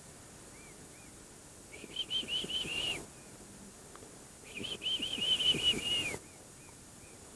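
Swan cygnets peeping: two runs of quick, high, repeated peeps, with a few single peeps before, between and after them.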